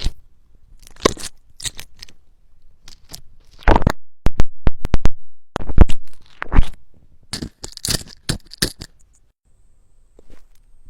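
Slime being squished and pressed, giving irregular sharp pops, clicks and short crackles. A quick run of clicks comes about four seconds in, the loudest pops follow, and it goes quiet near the end.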